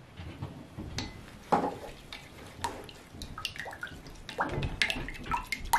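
Water poured from a small glass into a glass measuring cup, then a wooden stir stick tapping and scraping against the glass while stirring a thick xanthan gum and water gel. There are scattered sharp clinks and ticks throughout, with a louder splash-like noise about a second and a half in.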